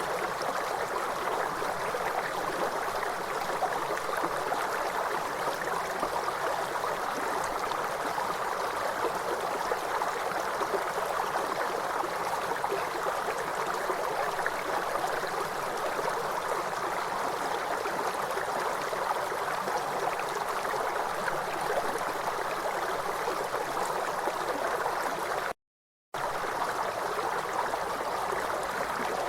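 Steady rushing of a flowing river, an even water noise with no birdsong standing out. It cuts out to total silence for about half a second near the end.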